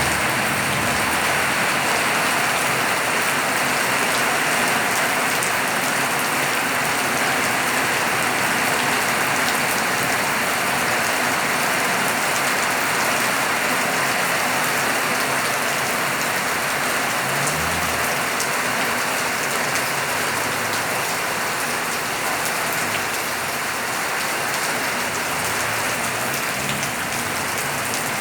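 Steady rain falling on surfaces, an even, unbroken patter of drops.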